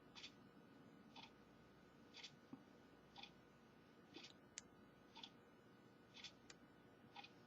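Near silence with faint, even ticking about once a second, and a few sharper small clicks in between.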